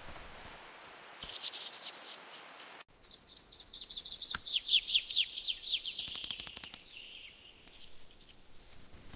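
A bird singing: a short faint run of high notes, then, after an abrupt break, a loud, rapid trill of high notes that falls steadily in pitch over about four seconds.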